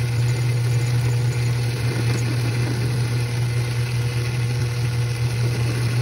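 Metal lathe running, its motor and drive giving a steady low hum while it turns down a small rod with a cutting tool.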